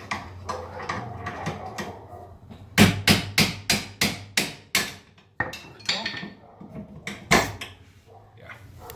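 Hammer blows driving out a seized, rusted part on a car's rear suspension. There is a quick run of about eight sharp strikes, roughly four a second, then a few more spaced blows, one of them louder.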